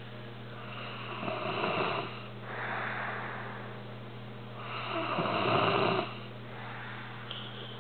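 A sleeping cat snoring: two snores, each about a second long, about a second in and about five seconds in, with a softer breath between them.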